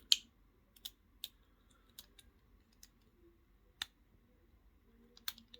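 Pins being picked in a Master Lock 410 lockout padlock: a lock pick probing and lifting the pin stacks under tension, giving about seven sharp, irregularly spaced clicks, the loudest right at the start.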